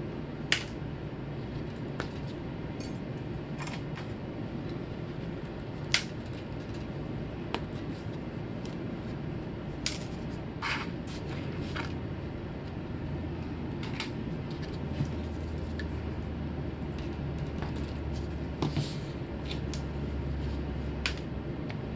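A handful of sharp, scattered clicks and light knocks of small hard objects being handled on a workbench, over a steady low hum.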